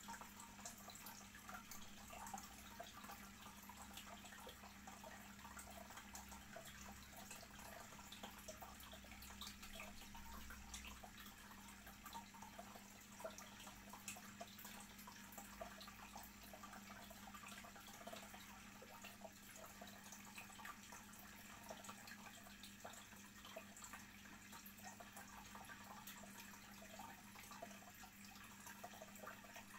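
Faint trickling and bubbling of water circulating in a saltwater aquarium, full of fine drips and ticks, over a steady low hum.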